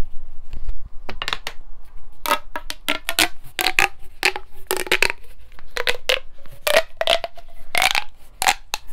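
Corrugated plastic pop tube being stretched and bent, its ridges snapping in an irregular string of sharp pops.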